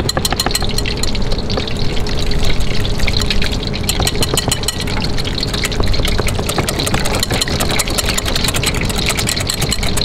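Wire balloon whisk beating double cream with lemon and sugar in a glass bowl for syllabub: rapid, even clicking of the wires against the glass, over a steady hiss and low rumble from the wok of oil deep-frying fritters on a gas burner.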